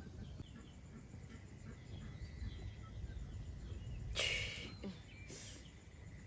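Rural outdoor background of low rumble with faint bird and insect calls, broken by two short harsh rasping sounds, the louder about four seconds in and a second about a second later.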